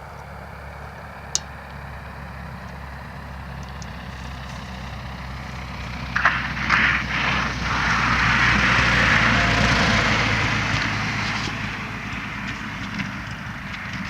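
Cessna Skyhawk's four-cylinder piston engine running steadily at low power. About six seconds in there are a few short sharp noises, then a rushing noise swells and fades away.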